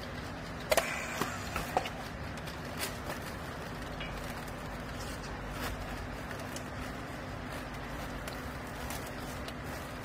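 Steady low hum of the baling machine running, with a few sharp plastic clicks and knocks about a second in as a handheld battery strapping tool is worked on the plastic straps around the bale.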